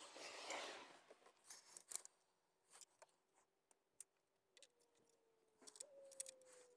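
Faint, scattered clicks and knocks of hard plastic mount parts being handled and fitted, with a short rustle at the start.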